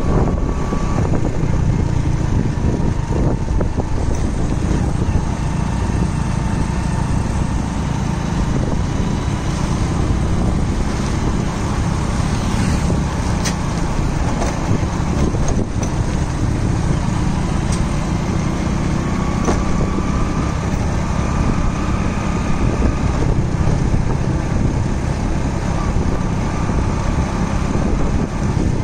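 Vehicles driving on a paved road: a steady low rumble of engine and tyre noise.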